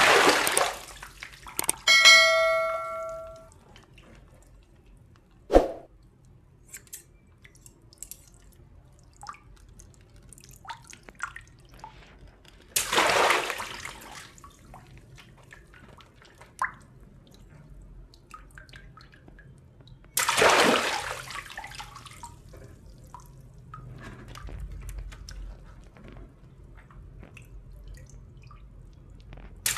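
Water-filled latex balloons cut open with scissors: a few sudden bursts, each followed by a gush of water splashing onto a tiled floor, with drips and wet handling in between. A bell-like chime rings once about two seconds in.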